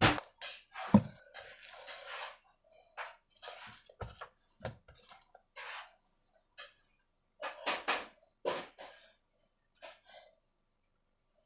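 Irregular knocks, clicks and clatter of containers and lids being handled, with louder knocks about a second in and again near eight seconds.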